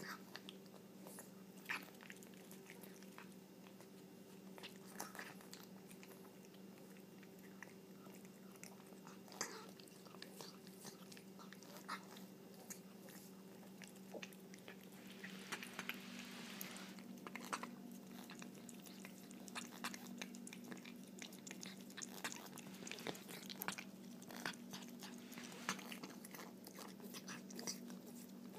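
A long-haired cat eating cat food fast from a plate: quick, frequent smacking and chewing clicks over a steady low hum.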